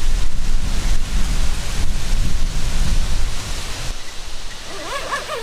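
Wind buffeting the microphone: a loud low rumble with a rushing hiss that eases off about four seconds in. A faint warbling sound comes in near the end.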